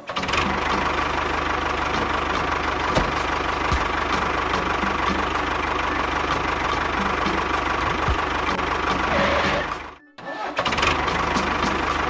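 Engine running steadily with an even knocking tick, about four a second. The sound drops out briefly about ten seconds in, then resumes.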